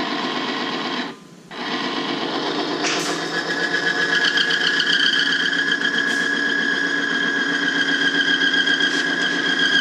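Electric motor of a lever-type oil friction tester running, with its test bearing rubbing under hand-applied lever load. It cuts out briefly about a second in, then runs on. From about three seconds in, a steady high squeal builds as the metal-to-metal friction rises in used oil treated with BG MOA additive.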